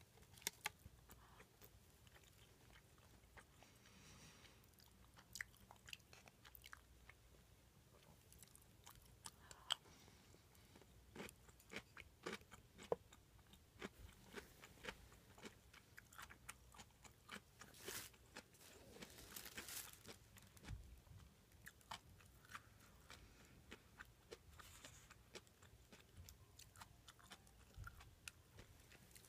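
Quiet close-miked chewing: irregular short mouth clicks and smacks of someone eating.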